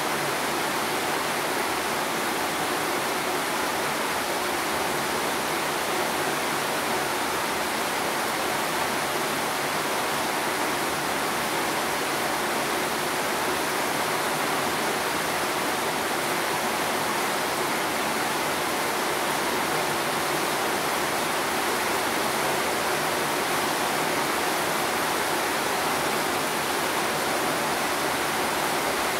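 Steady sound of rain, an even hiss at a constant level.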